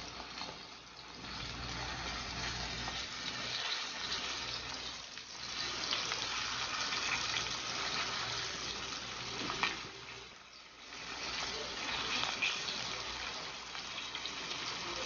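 Floured pompano frying in hot butter and oil: a steady crackling sizzle that eases off briefly twice, with a single light knock about two-thirds of the way through.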